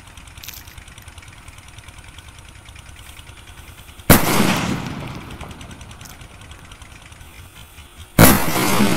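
Two loud sutli bomb (twine-wrapped firecracker) blasts about four seconds apart, each a sharp bang that dies away slowly. Before the first, a low steady hiss.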